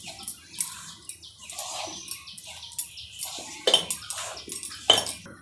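Bare hands rubbing atta flour and oil together in a stainless steel bowl: irregular soft rustling and scraping of fingers through the flour against the metal, with two sharper clicks near the end.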